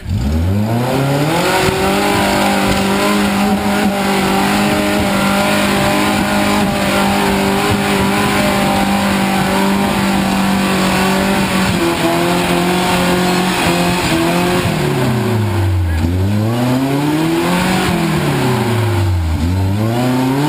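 Off-road truck engine revved hard from low to high in the first second or two and held at steady high revs for about ten seconds, then falling and climbing back twice in long swells: full throttle on a steep dirt hill climb.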